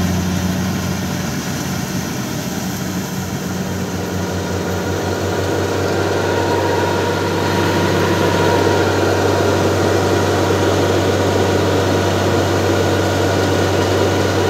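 Diesel engines running steadily: a Kubota DC68 68 hp combine harvester working the crop, with a tractor's engine alongside. The engine noise grows louder about seven seconds in.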